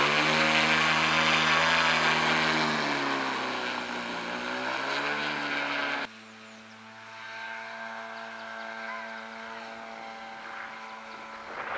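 Model motor glider's 38 cc single-cylinder two-stroke engine, a converted chainsaw motor, running at close range with its pitch dipping and coming back up. About six seconds in it drops suddenly to a fainter, steady drone as the model takes off and flies low.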